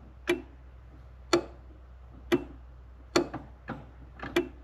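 Datsun 280Z's electric wiper motor switched on but not running: it only clicks sharply about once a second, with fainter clicks between, as it tries and fails to turn.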